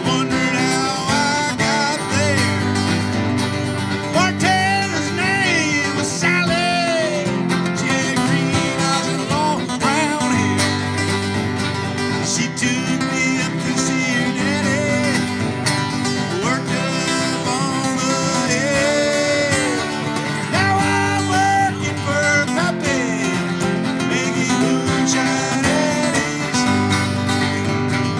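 Bluegrass-style acoustic jam: two acoustic guitars strumming a steady rhythm, with a harmonica playing bending lead lines over them.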